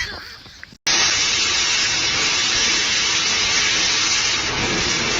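A loud, even hiss with no pitch to it, which starts suddenly about a second in and cuts off suddenly near the end.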